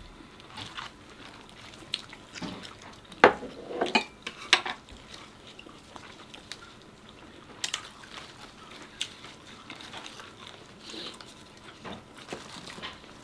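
Tableware clinking and tapping at a meal: scattered short clicks of utensils against dishes, the loudest bunched together about three to five seconds in.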